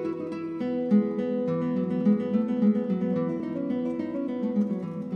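Background music: an acoustic guitar playing a quick run of plucked and strummed notes at a steady pace.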